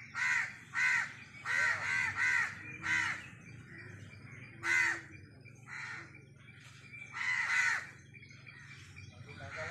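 Crows cawing repeatedly: about ten short, harsh caws in irregular groups, with a pause of over a second midway.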